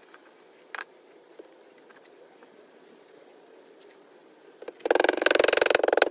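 Quiet hand work in loose casting sand with one light knock about a second in; then, near the end, a rubber mallet starts pounding Petrobond sand packed into a steel flask, a fast, even drumming of many blows a second.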